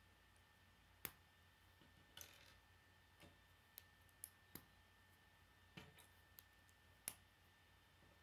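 Plastic K'nex rods and connectors clicking as they are handled and snapped together: about ten scattered, irregular clicks, the sharpest about a second in and near the end.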